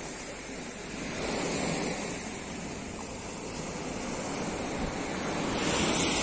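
Sea surf washing onto the beach, swelling about a second in and again near the end, with wind rumbling on the microphone.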